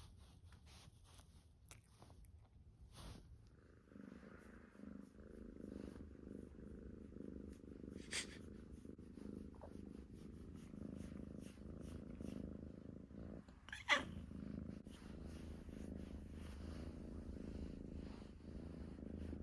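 A cat snoring: a low, steady, rhythmic rasp that sets in about four seconds in. Two short sharp noises cut through it, about eight and fourteen seconds in, and the second is the louder.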